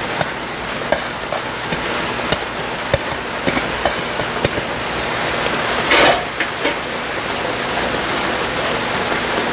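Minced meat sizzling in a pot on the stove as chopped chilies, herbs and onion are tipped in from a plate, with small ticks and taps throughout and a brief louder hiss about six seconds in.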